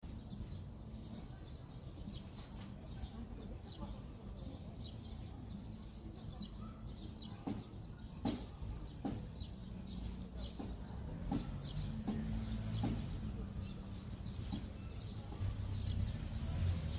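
Birds chirping in quick, short, high calls, with a few louder calls in the middle, over a steady low rumble.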